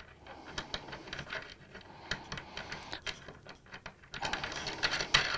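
Steel nut being wound by hand onto a threaded rod over a washer and plywood plate: light, irregular metallic clicks and rattles, getting busier about four seconds in.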